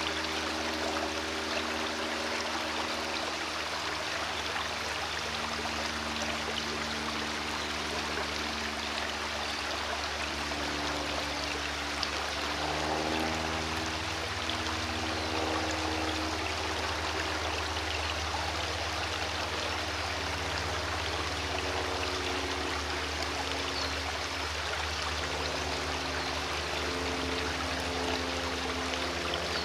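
Shallow stream trickling and burbling over rocks in a steady rush, with low held tones underneath that shift every few seconds.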